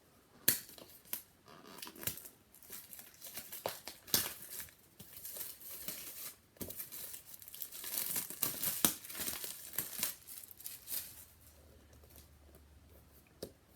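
Packaging of a HomePod mini box being torn open and crinkled: irregular tearing and crackling rustles, busiest about eight seconds in, dying away after about eleven seconds.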